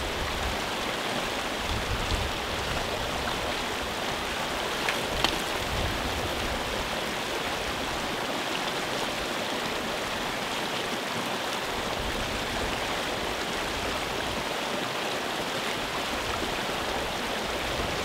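Steady rush of water pouring down a wooden flume into a pool and churning in a foaming whirlpool: a natural 'washing machine' used for laundry.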